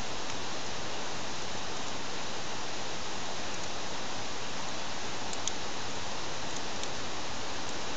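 Bonfire burning, its wood taken for cedar: a steady hiss with a few sharp crackles, the sharpest about five and a half seconds in.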